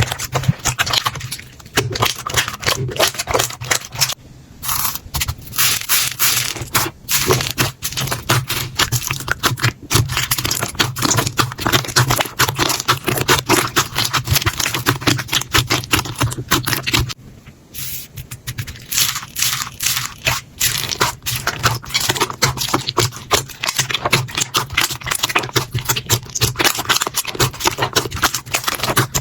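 Hands pressing and kneading slime: a dense run of crackling, popping clicks, breaking off briefly about four seconds in and again around seventeen seconds.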